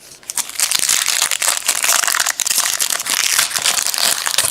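Crinkling of a foil trading-card pack wrapper as it is handled and opened. The dense crackle starts about half a second in and goes on without a break.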